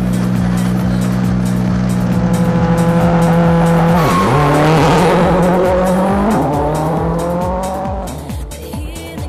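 Ford Focus RS WRC rally car's turbocharged four-cylinder engine held at steady high revs. About four seconds in, the revs dip sharply and climb again as the car launches from the start line. Background music with a steady beat plays underneath.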